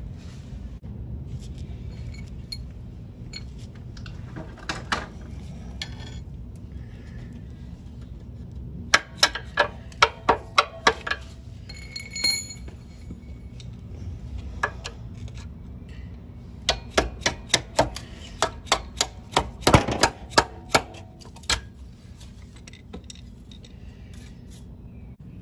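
Hammer striking a steel mounting bolt on a 1968 Honda CT90 frame to drive it out: two runs of sharp metallic taps, several a second, the first about nine seconds in and the second past the halfway point, with a brief metal ring between them. A low steady hum sits underneath.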